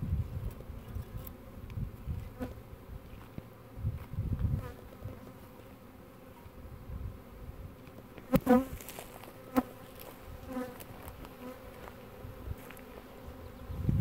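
Swarm of Russian honey bees buzzing around a hive box in a steady hum, with single bees zipping loudly close past a little after eight seconds and again about a second later. Some low rumbles come and go beneath the hum.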